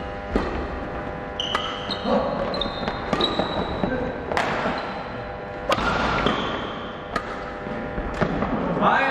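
A badminton doubles rally on a wooden hall floor: rackets strike the shuttlecock with sharp smacks about once a second, between short shoe squeaks and footfalls.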